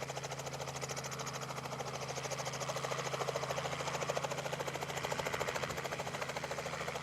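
Helicopter running nearby, its rotor beating in a fast, steady chop over a low engine hum.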